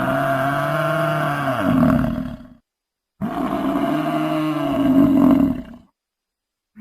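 Buffalo bellowing in long, deep, drawn-out calls. One call ends about two and a half seconds in, falling in pitch as it fades, a second call of about two and a half seconds follows, and a third begins right at the end.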